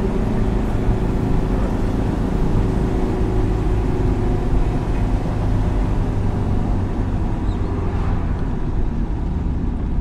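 A car driving along at speed, heard from inside the cabin: a steady rumble of engine and tyre noise.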